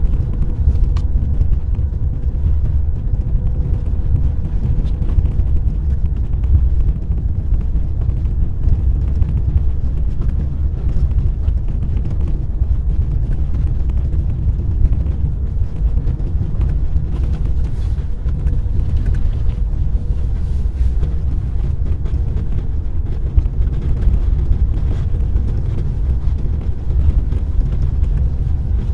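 Car driving on a snow-covered road: a steady low rumble of tyres and engine with a faint constant hum, and scattered small ticks.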